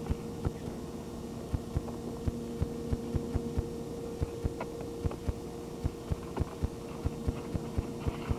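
Dull low thumps of bodies moving and landing on a backyard trampoline mat, a few each second, over a steady hum.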